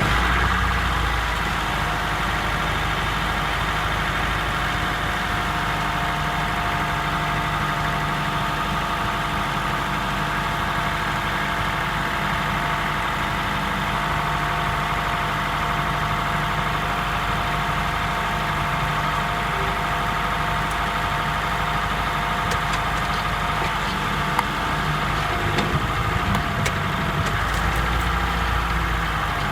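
Honda Freed Hybrid's 1.5-litre four-cylinder engine running steadily through its cold warm-up after the i-DCD hybrid system starts, heard as a blend of cabin and engine-bay sound.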